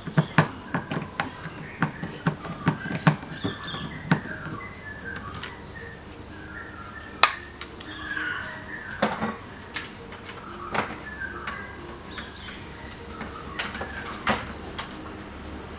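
Sharp clicks and knocks of a Phillips screwdriver and the plastic high-mount stop lamp housing as the lamp's bolts are undone and the lamp is pulled free. The clicks come close together for the first four seconds, then only now and then. Birds chirp in the background.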